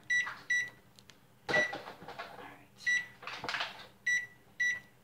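A Whirlpool Gold oven's electronic control panel beeping as its keypad buttons are pressed, about six short, high beeps at uneven intervals: the bake temperature being stepped up to 425 °F to preheat the oven.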